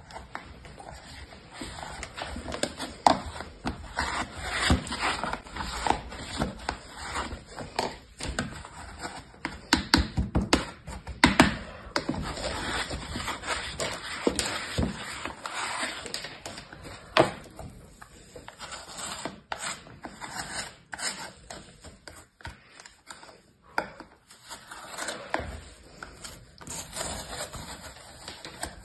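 Kinetic sand being pressed and rolled with a plastic toy rolling pin in a plastic tray: irregular soft scraping and crunching of the sand, broken by a few sharp clicks.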